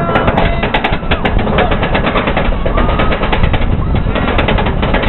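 Steel hyper coaster train being hauled up its chain lift hill: a loud, rapid, steady clatter of the lift chain and the anti-rollback ratchet.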